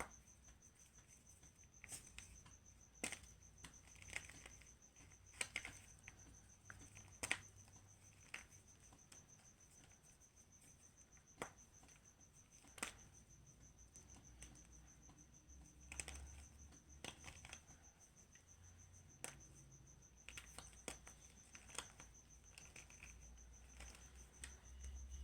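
Chunks of chalk being crushed: irregular crisp cracks and crumbling crunches, a dozen or so sharper snaps among softer crackle. A steady high thin tone runs underneath throughout.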